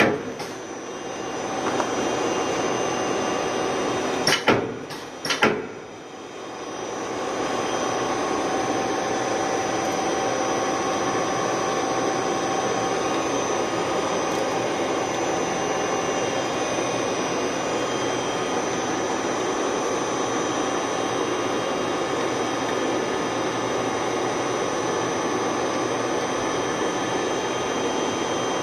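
Yang SML-20 CNC lathe running with a steady mechanical whine and hum. A couple of sharp clunks come about four and five seconds in, the sound briefly drops, then it settles back to a steady run.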